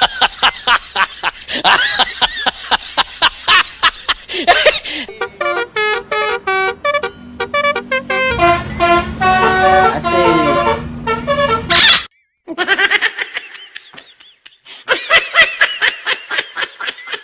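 Multi-tone 'telolet' bus horn playing a tune in short stepped notes, starting with a run of rapid short blasts and cutting out briefly about twelve seconds in.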